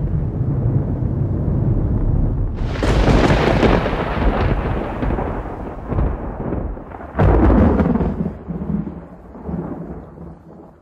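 Thunder: a low rumble, broken by two loud crashes about three and seven seconds in, then fading away near the end.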